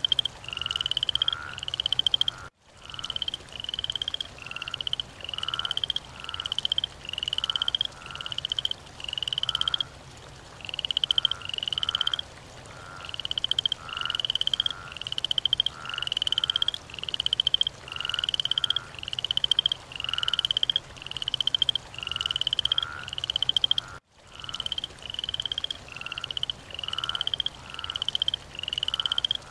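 Frog calling: a pulsed, slightly rising croak repeated a little more than once a second, each call swelling in loudness. The sound cuts out abruptly for a moment twice.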